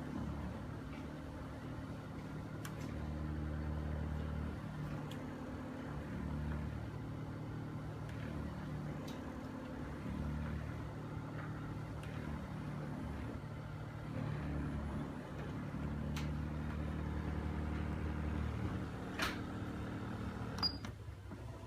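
OSIM OS-338 massager's motor running with its heating function on, a low mechanical hum that swells and eases every few seconds with a few faint clicks: the noisy abnormal sound the owner reports with the heat on. It stops with a click near the end.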